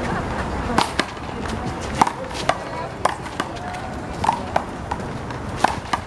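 One-wall handball rally: a small rubber handball smacked by bare hands and bouncing off the concrete wall and court, a sharp smack every half second to second.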